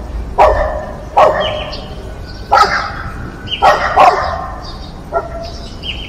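A dog barking, about six sharp barks at uneven intervals.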